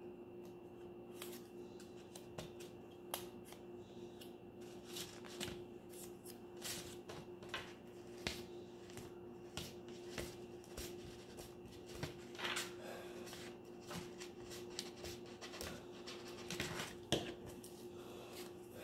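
Faint, scattered taps and rustles of small paper squares being picked up and pressed onto a paper plate with a glue stick, over a low steady hum.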